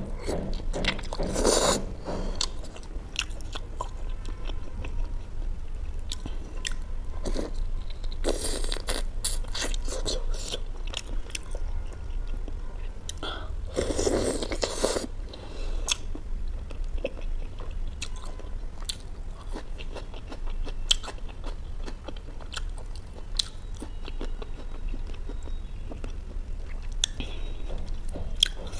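A person biting and chewing bone-in butter chicken pieces: many small chewing clicks, with louder bites about a second in, around eight seconds and around fourteen seconds. A steady low hum runs underneath.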